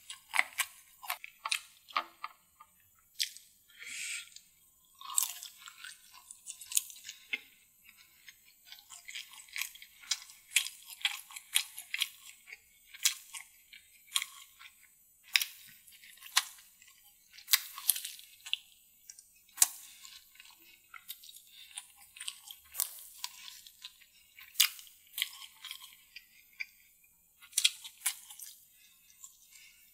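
Close-miked chewing and biting of deviled chicken drumstick: irregular crunches and sharp mouth clicks, several a second, with short pauses between mouthfuls.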